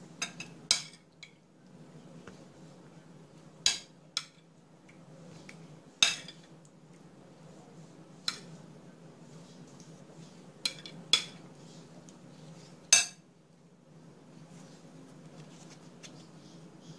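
Metal spoon clinking against a glass bowl while cooked pear filling is scooped out, about ten sharp separate clinks spread over the first thirteen seconds, the last few seconds quieter. A steady low hum runs underneath.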